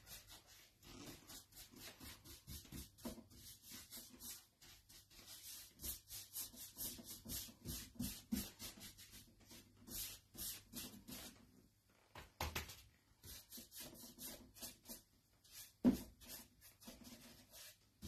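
Paintbrush scrubbing chalk-style paint onto a bookshelf: a quick run of short, scratchy bristle strokes with a few brief pauses. A single sharper knock comes about 16 seconds in.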